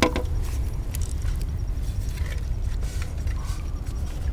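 Steady low rumble of wind on the microphone, with one sharp knock right at the start and a few faint taps after it.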